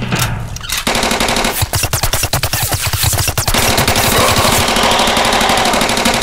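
Rapid automatic gunfire, a machine-gun sound effect: a continuous stream of shots that starts about a second in and keeps going.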